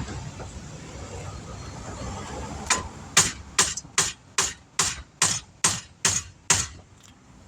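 About ten hammer blows on metal in a steady rhythm, roughly two to three a second, each with a short ring, knocking at a rusted, seized brake part on a 2012 Subaru Forester.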